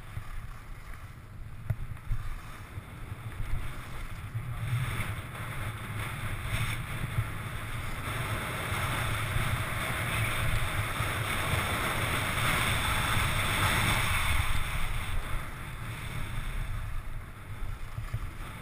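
Skis sliding over groomed snow with wind rushing over a helmet camera's microphone: a steady hiss and low rumble that swells about halfway through as speed builds, then eases off near the end.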